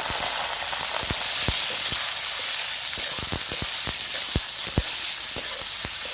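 Food frying in hot oil in a pan: a steady sizzle with frequent sharp pops and crackles.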